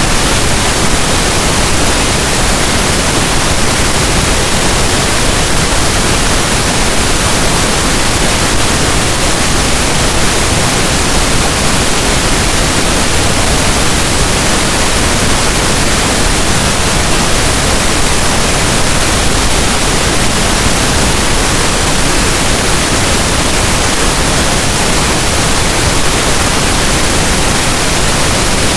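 Steady, loud pink noise: an even hiss spread across all pitches, with no tones, pulses or changes.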